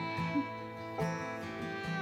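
Background music: an upbeat acoustic tune with plucked guitar and fiddle.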